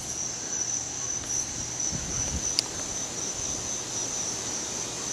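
Steady high-pitched trilling of crickets chorusing at night, with wind rumbling on the microphone. A single sharp click sounds about two and a half seconds in.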